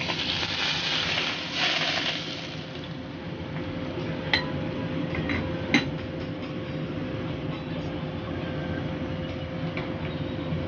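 Hot oil poured over the scallion topping of a steamed pomfret, sizzling and hissing for the first couple of seconds before dying away. Two sharp clinks of dishware follow, about four and six seconds in, over a steady low hum.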